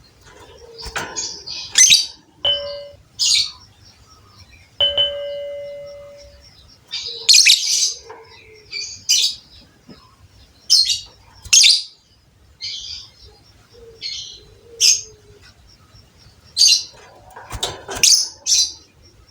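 Caged lovebirds giving short, sharp high chirps, about a dozen scattered through the stretch. A ringing ding sounds briefly about two and a half seconds in, and again about five seconds in, dying away over a second and a half.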